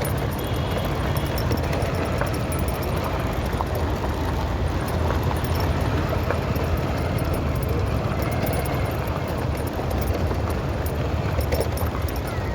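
Vehicle engine running steadily on the move, a low hum with road and wind noise.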